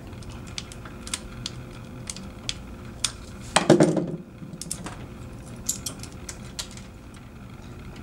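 Punchdown tool pressing network cable wires into the insulation-displacement slots of a keystone wall jack: a scattered series of small, sharp plastic clicks. A short louder sound comes a little past halfway.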